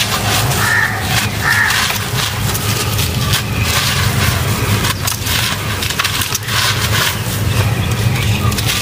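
Dry, crumbly lumps of sandy dirt and cement crushed in the hands and showering onto a pile on a concrete floor: a continuous gritty crunching with many small cracks, over a steady low hum.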